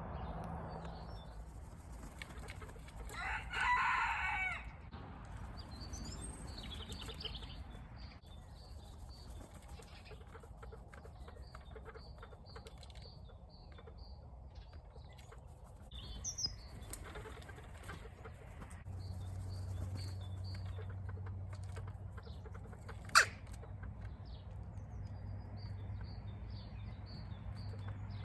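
Garden birds chirping, with small high chirps repeating throughout and one louder, drawn-out bird call about three seconds in. A single sharp click stands out near the end.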